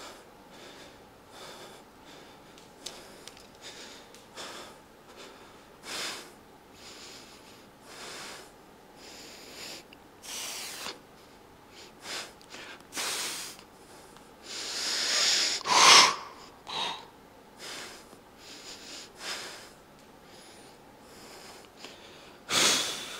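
A man breathing hard through his nose and mouth while flexing muscle poses: a run of short sniffs and snorting exhales. There is a loud, drawn-out forceful exhale about two-thirds of the way through and another sharp one near the end.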